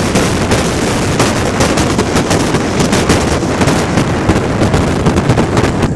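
Wind blasting across the microphone of a boat-mounted action camera at speed: a dense rumble full of constant crackling pops, mixed with the rush of the wake spray.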